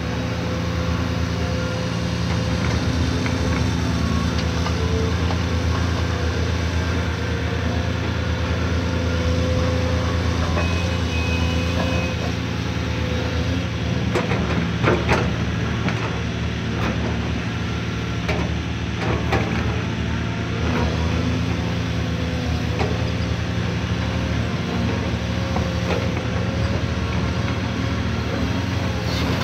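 Caterpillar 340D hydraulic excavator's diesel engine running steadily as it works, with a few knocks and clanks about halfway through as it loads a dump truck.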